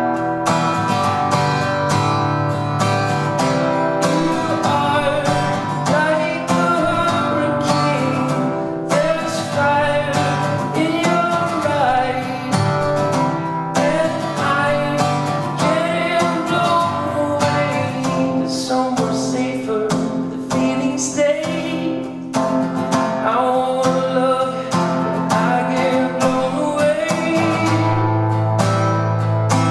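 Band music with strummed acoustic guitar over a steady low part, and a melody line that bends in pitch on top.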